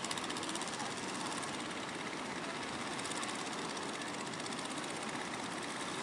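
A fishing boat's engine running steadily with a rapid knocking pulse, over the wash of breaking surf.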